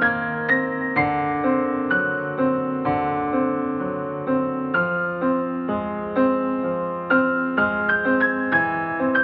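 Background music: a piano melody with steady, evenly paced notes.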